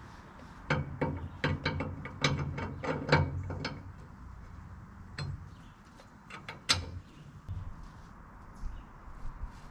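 Metal tools and parts clicking and knocking while a new half shaft, U-joint and yoke are fitted to a tractor: a quick run of about a dozen sharp knocks at roughly three a second, then a few scattered clicks, the sharpest near the seven-second mark.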